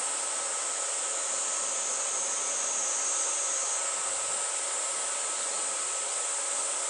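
Cicadas singing in a steady, unbroken high-pitched drone.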